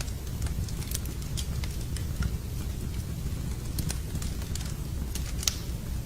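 Wood fire burning in a fireplace: irregular sharp crackles and pops over a low steady rumble, with one louder pop about five and a half seconds in.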